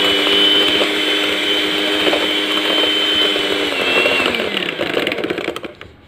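Electric hand mixer whipping egg whites with sugar in a bowl, its motor whining steadily at high speed. About four seconds in the pitch drops as it slows, and it winds down and stops.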